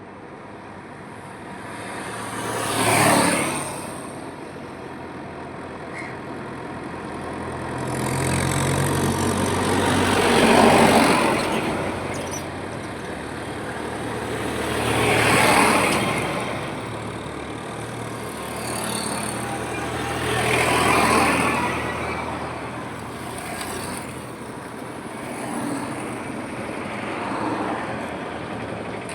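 Highway traffic: vehicles passing one after another, each one swelling and fading over steady road noise. The sharpest pass-by comes about three seconds in. Around the middle, a longer, louder pass-by carries a low engine hum.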